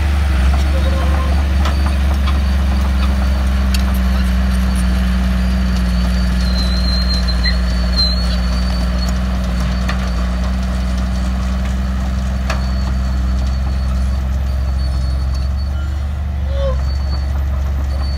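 Komatsu crawler bulldozer's diesel engine running steadily as the machine moves across sand, with the mini excavator's engine running behind it.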